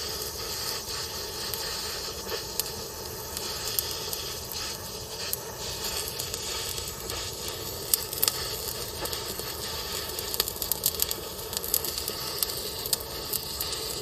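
Handheld gas torch burning with a steady hiss, with scattered sharp crackles that come more often in the second half.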